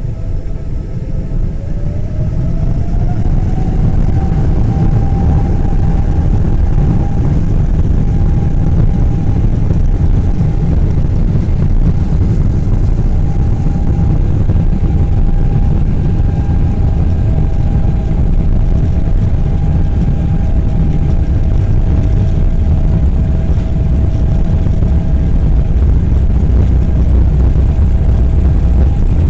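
Boeing 777-300's twin jet engines heard from inside the passenger cabin: a whine rising in pitch over the first few seconds as thrust comes up, then holding steady over a deep, loud rumble.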